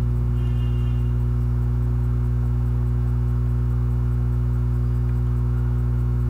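Steady low electrical hum with a stack of even overtones, unchanging throughout, typical of mains hum picked up on the recording.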